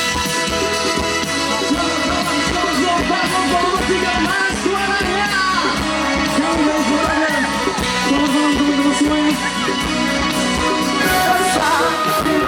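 A rock band playing with a singer's voice over sustained guitar and keyboard tones.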